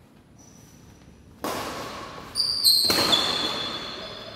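Badminton rally: sharp racket hits on the shuttlecock, one about a second and a half in and another about three seconds in, each ringing out in the echoing hall, with high squeaks of shoes on the court floor around the second hit.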